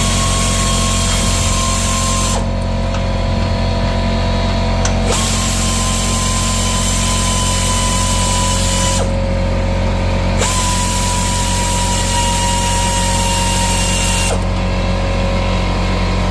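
A power-tool motor runs steadily with a low hum. A higher hiss over it cuts out and comes back several times.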